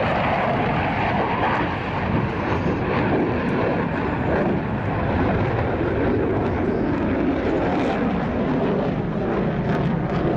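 F/A-18 Hornet's twin jet engines making a continuous roar that deepens over the first several seconds.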